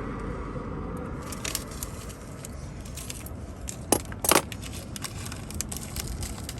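Light clicking and rattling of small metal parts being handled, with two sharp clicks about four seconds in. A passing car fades out at the start.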